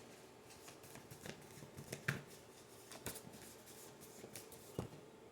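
Tarot cards being shuffled and drawn by hand: soft papery rustling with a few light snaps of the cards, the sharpest about two, three and nearly five seconds in.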